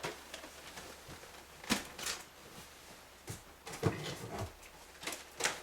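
Packaged plastic toys being handled and taken out of a box: a scattering of light knocks and clicks, about seven in all, with faint rustling between them.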